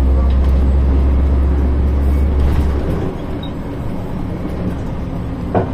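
Inside a 1993 Ikarus 280.49 articulated diesel bus under way: a deep engine drone that falls away about three seconds in, leaving the lighter running noise of the bus. A single sharp knock comes near the end.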